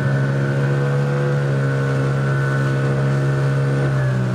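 Small boat's outboard motor running steadily at cruising speed. Its tone shifts slightly about four seconds in.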